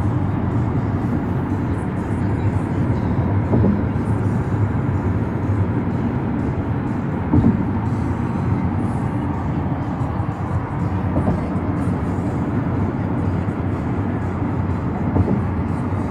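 Steady low rumble of a car's engine and tyres at freeway speed, heard from inside the cabin.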